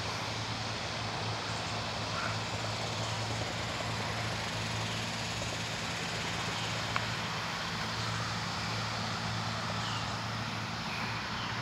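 Steady low hum under an even hiss, unchanging throughout, with one faint click about seven seconds in.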